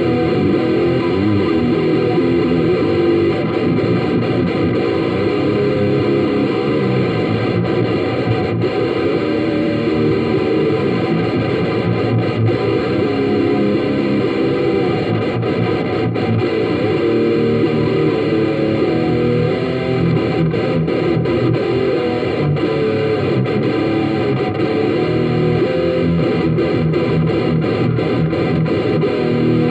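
Electric guitar played continuously through a Marshall CODE50 modelling amp with a distorted tone, picked up by a phone microphone.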